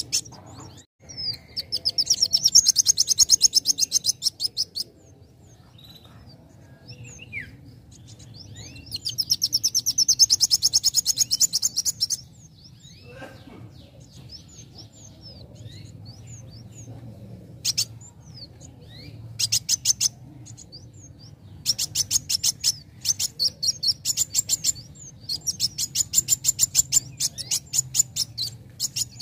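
Young male kolibri wulung sunbird singing. It gives bursts of rapid, high-pitched trilled notes lasting a few seconds each, with short chirps in between.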